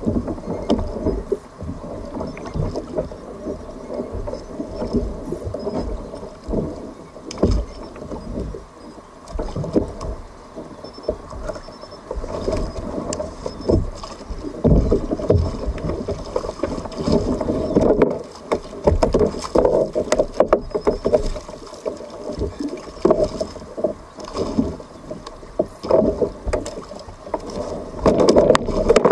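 Water sloshing and splashing against a kayak's hull, surging unevenly, with scattered short knocks.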